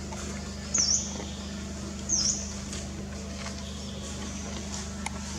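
Two short, high-pitched animal chirps about a second and a half apart, each dipping and rising in pitch, over a steady low hum.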